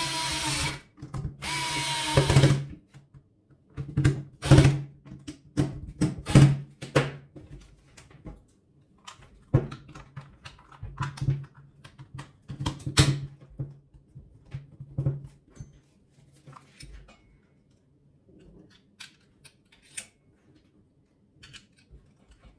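A power screwdriver runs in two short bursts in the first few seconds, driving screws back into the plastic housing, then plastic parts are handled with scattered clicks and knocks that grow sparser.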